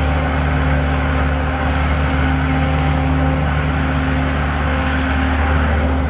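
An engine running steadily at a constant speed, an even low drone with no change in pitch.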